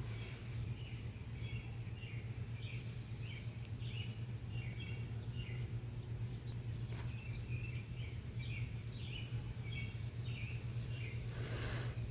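Small birds chirping, short high calls repeating every second or so, over a steady low hum. A brief rush of noise comes near the end.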